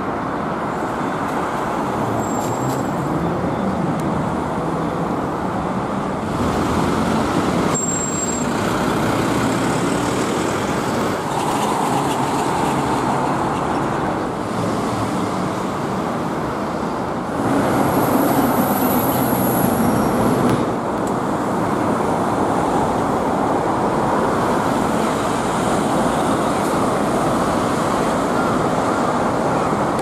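City road traffic: cars and highway coaches passing, a steady mix of engine and tyre noise, louder for a few seconds past the middle.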